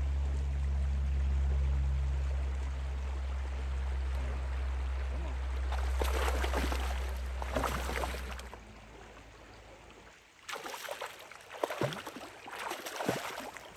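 Hooked rainbow trout splashing at the surface of the river during the fight, over the rush of the current. Bursts of splashes come about six to eight seconds in and again through the last few seconds, and a steady low rumble stops about two-thirds of the way through.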